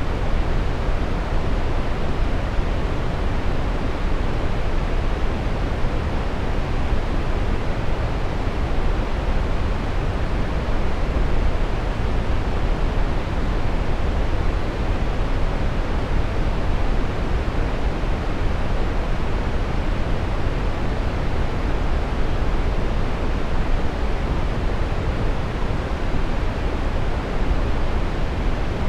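Steady brown noise: an even, deep rushing hiss, strongest in the lows and fading toward the highs, unchanging throughout.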